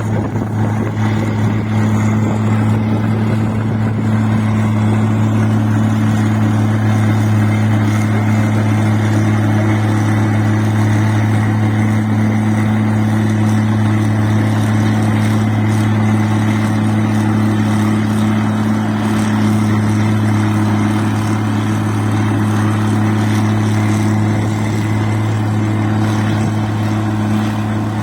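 Rice-processing machine (mesin padi) running at a steady speed, a constant loud engine hum with mechanical noise and no change in pitch.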